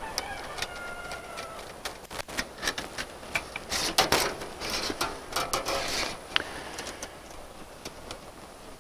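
Stiff 9-gauge steel fence wire clicking and scraping against a small metal wire rope clip as its two ends are threaded through by hand, with a busier run of rattling scrapes around the middle.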